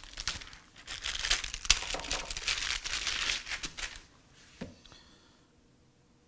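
Plastic wrapper crinkling and tearing as it is pulled off a refrigerated rolled pie crust, stopping about four seconds in, followed by a single soft knock.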